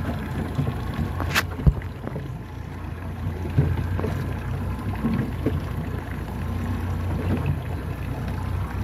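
Water slapping against the hull of a small fishing boat on a choppy sea, over a steady low rumble, with a sharp click about a second and a half in.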